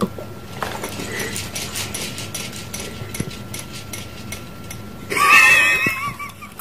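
Electronic horse sound from a baby activity jumper's toy: a run of clip-clop hoofbeats, then a loud wavering whinny about five seconds in.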